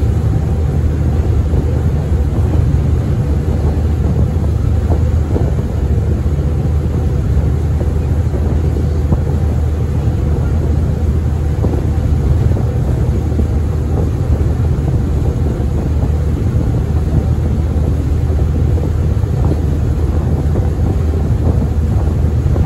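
Engine of the small passenger ferry Tsui Wah 12, running steadily under way as a constant low drone, with wind and water noise over it.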